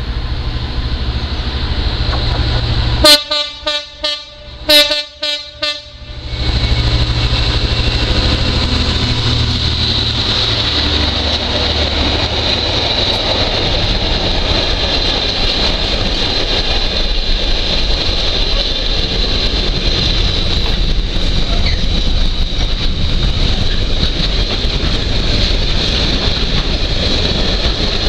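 Diesel freight locomotive sounding its horn in two loud blasts about a second and a half apart as it approaches. Its engine hum gives way to the steady rumble and rattle of container wagons running past.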